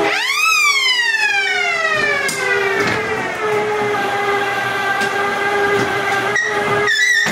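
Ghost train ride sound effect: a loud siren-like wail that swoops up sharply, slides slowly down and then holds a steady tone, breaking off briefly near the end.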